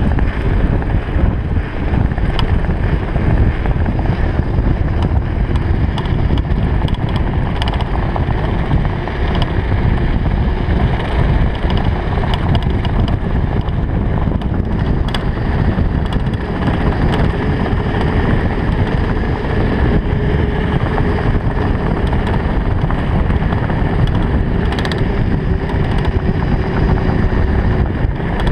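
Wind buffeting a GoPro microphone on a fast mountain-bike descent, over a steady low rumble of the tyres on rough pavement, with frequent sharp rattles and clicks from the bike's parts over bumps. A faint steady whine runs through the second half.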